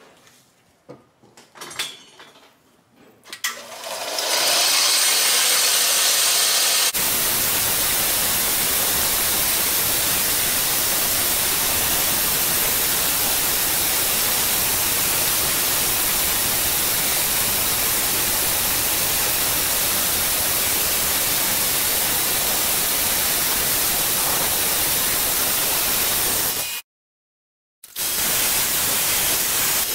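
Belt grinder spinning up about four seconds in, then the steady, loud hiss of the sanding belt grinding and shaping a knife handle. Near the end the sound cuts out for about a second and a second belt sander is heard running.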